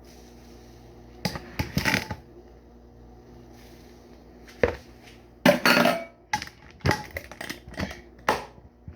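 Kitchen handling sounds: scattered sharp clinks and knocks of containers and utensils. A few come early, then a denser run in the second half, the loudest a longer noisy burst a little past halfway.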